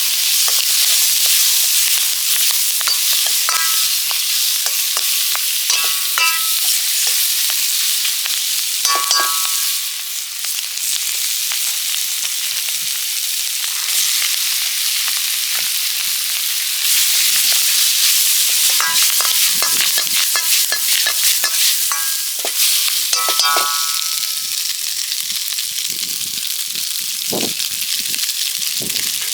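Food sizzling loudly in a wok as it is stir-fried, with a steady hiss and, every few seconds, short ringing clinks and scrapes of a utensil against the pan.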